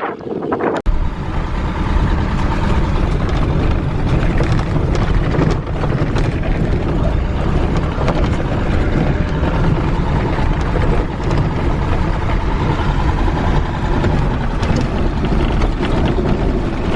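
Van driving on a narrow, rough dirt road: a steady low rumble of engine and tyres, with scattered rattles and knocks. It starts about a second in.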